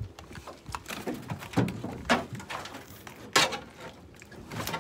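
Several scattered knocks and clatters of handling on a boat deck strewn with oyster shells, the loudest about three and a half seconds in.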